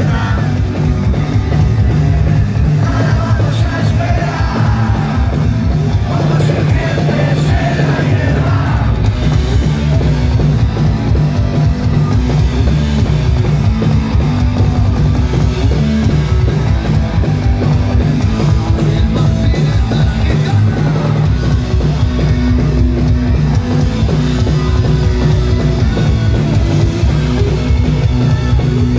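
A punk rock band playing live and loud: distorted electric guitars, bass and a drum kit. Shouted vocals come in over the first third.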